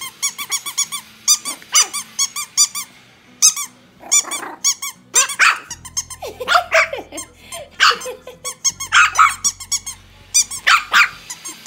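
Squeaky rubber dog toy squeaked over and over in quick runs, several squeaks a second. From about halfway in, a Shih Tzu puppy's small growls and yips mix in with the squeaks.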